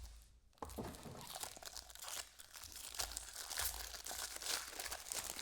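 Plastic wrapping on a trading-card box or pack crinkling and tearing as it is opened: a dense, continuous run of small crackles.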